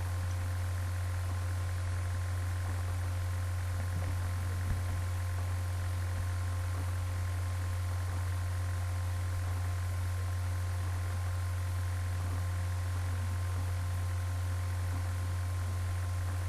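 Steady low hum with an even hiss over it and faint constant tones higher up, unchanging throughout.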